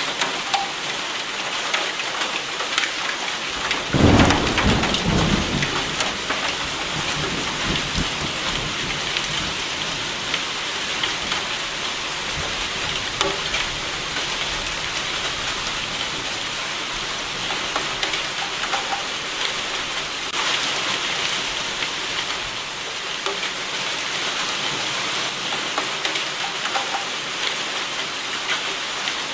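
Steady heavy rain with a thunderclap about four seconds in, rumbling low for a couple of seconds before fading back under the rain.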